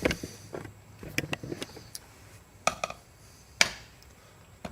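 A scatter of short clicks and knocks from handling things, with a few in quick succession and the loudest single knock about three and a half seconds in.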